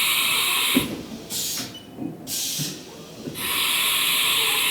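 Haas VF-4B vertical machining center's side-mounted tool changer cycling through a tool change: hissing blasts of compressed air, two long ones of about two seconds at the start and near the end, shorter hisses between them, and a click about a second in.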